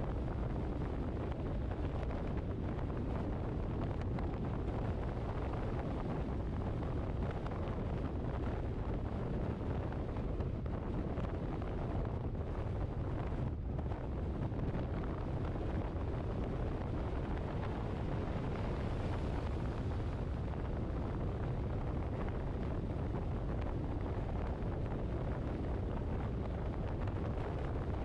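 Steady road and wind noise of a car driving along, a low rumble with a thinner hiss above it.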